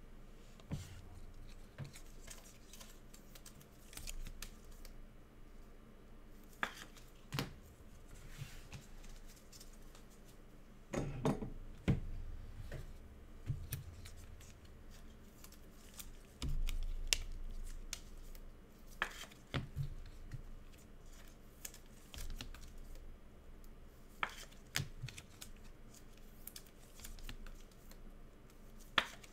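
Trading cards and their pack wrappers being handled on a table: scattered sharp clicks and short scraping sounds at irregular intervals, with a few soft knocks.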